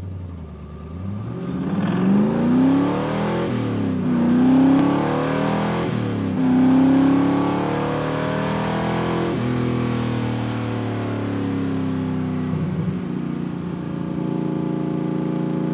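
1975 Cobra's engine just after start-up, rising and dropping in pitch three or four times, then settling about ten seconds in to a steady, even run.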